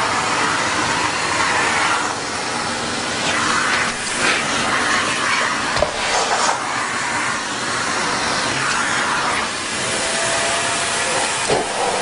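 Vacuum cleaner running, its hose's brush nozzle held against a cat's fur: a steady rushing hiss of suction that swells and dips as the nozzle is moved and covered. A thin steady whistle comes in near the end, and there are a couple of sharp knocks.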